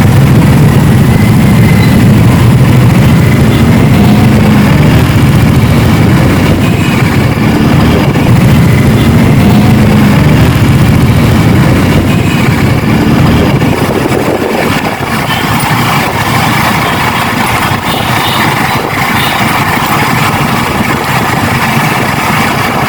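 Yamaha R15's small single-cylinder engine and wind rush on the rider's microphone while riding in traffic. About fifteen seconds in, the low wind rumble drops away as the bike slows.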